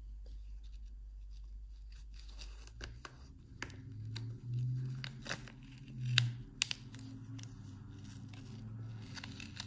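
Clear plastic sleeve around a fountain pen crinkling and rustling as gloved hands pick it up out of its presentation box, with scattered sharp crackles from about three seconds in.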